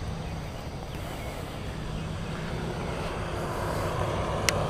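Steady low rumble of a distant engine that grows slightly louder, with a single sharp click near the end.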